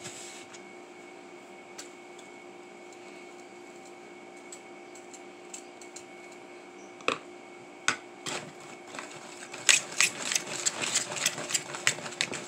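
A spoon stirring thick brownie batter in a plastic mixing bowl, scraping and knocking against the sides: scattered clicks at first, a single louder knock about 7 seconds in, then quick, rapid scraping strokes in the last few seconds. A steady faint hum runs underneath.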